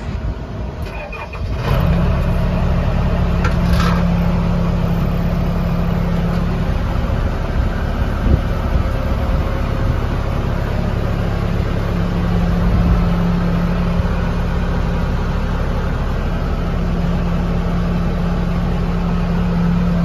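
Case 580L backhoe loader's four-cylinder diesel engine cranked on the starter, catching after about a second and a half, then running steadily.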